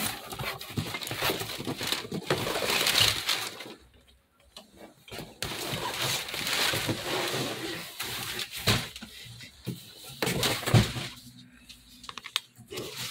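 Cardboard box being cut and torn open by hand: irregular scraping, ripping and rustling of the cardboard, with a short pause about four seconds in and another near the end.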